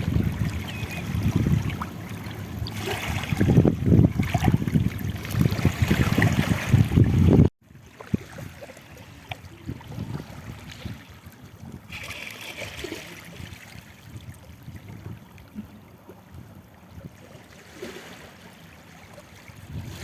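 Water at the shoreline with wind rumbling on the microphone, loud at first, then cutting off abruptly about seven and a half seconds in to a much quieter stretch of faint trickling water.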